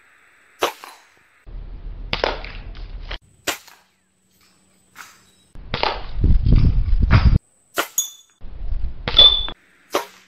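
About four sharp cracks of a spring-piston break-barrel air rifle firing pellets, separated by abruptly cut stretches of rumbling noise, with a short ringing ping just before the last crack.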